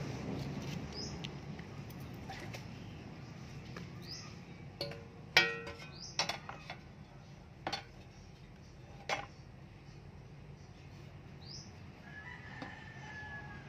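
A steel shovel blade clanks a few times against concrete; the loudest knock, about five seconds in, rings briefly. Faint bird calls sound in the background, including a longer call near the end.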